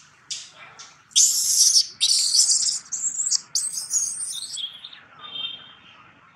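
Baby long-tailed macaque screaming in shrill, high squeals: a few short squeaks, then loud, harsh cries from about a second in that go on for some three seconds and fade to a fainter cry near the end.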